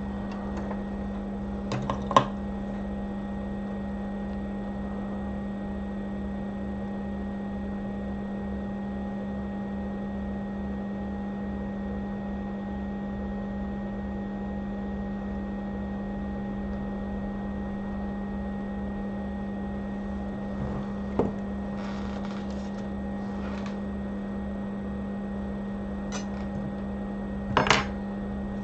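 Steady electrical hum from bench equipment, with a few small metallic clinks of tools on the bench: one about two seconds in, one around twenty-one seconds, and the loudest near the end.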